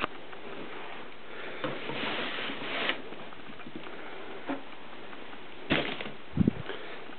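Rustling and handling noise in a small room, with a few light knocks and a short dull thump about six seconds in.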